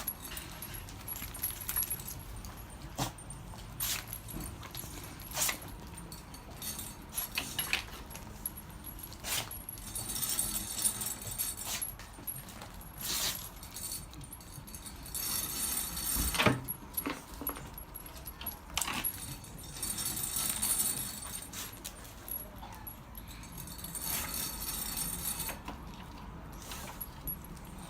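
Metal jingling in repeated short bursts, with scattered sharp clicks and one heavier thump about halfway through.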